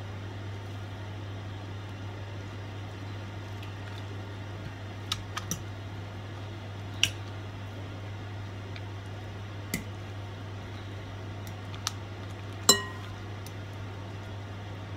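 Metal fork clinking against a glass mixing bowl while soaking bread slices in beaten egg: a handful of sharp, irregular clinks, the loudest near the end ringing briefly. A steady low hum lies underneath throughout.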